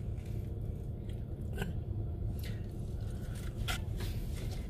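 Plastic forks scraping and clicking in cardboard takeout boxes of poutine, with chewing. A few sharp scrapes stand out about one and a half, two and a half and three and a half seconds in, over a steady low hum.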